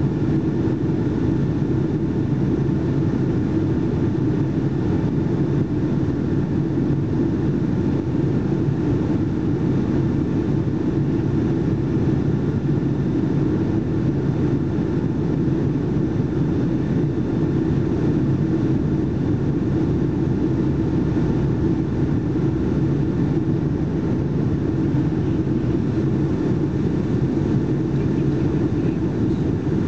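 Steady cabin noise aboard a Boeing 757-232 in flight, heard from a window seat by the wing: a constant low rumble from its Pratt & Whitney PW2037 turbofans and the airflow past the fuselage, with a faint steady hum.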